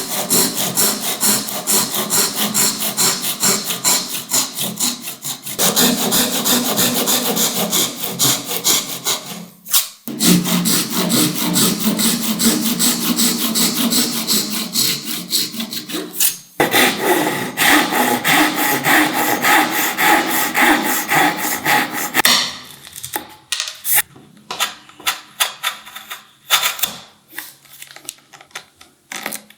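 Hand saw cutting wood in quick, even back-and-forth strokes, with a couple of short breaks. Near the end the strokes come slower and quieter.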